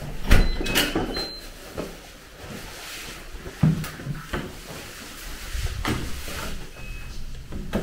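A door being opened and shut: a loud clunk just after the start, then latch clicks and a few more knocks, with footsteps in sneakers on a hard stone floor.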